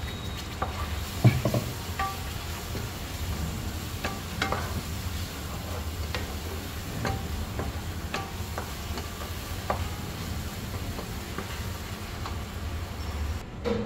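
A wooden spatula stirring and scraping a ground masala paste around a kadhai, with irregular scrapes and clicks against the pan and the mix sizzling on the heat as it starts to fry. One sharper knock of the spatula comes about a second in, and a steady low hum underneath stops near the end.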